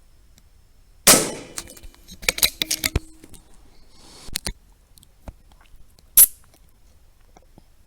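A rifle shot about a second in, with a short ringing tail. A scatter of clicks and knocks follows, then another short sharp crack about six seconds in.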